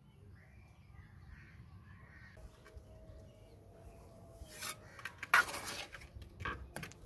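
Steel mason's trowel scraping and scooping cement mortar against a metal mortar pan and bricks: a few short rasping scrapes in the second half, the longest and loudest about five and a half seconds in.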